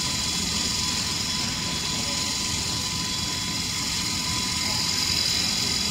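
Feed extrusion plant machinery running steadily: a constant mechanical hum and hiss with a thin steady whine above it.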